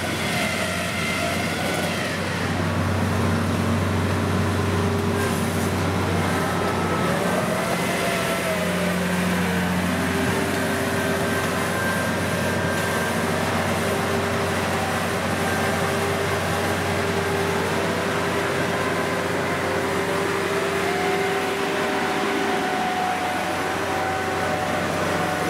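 Kubota DC70 combine harvester's diesel engine running steadily as the machine travels on its crawler tracks, a constant low hum with a fainter whine that drifts up and down twice.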